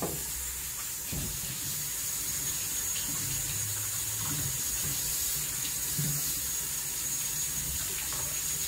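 Kitchen faucet running in a steady stream into a stainless steel sink while a scaled striped bass is rinsed under it.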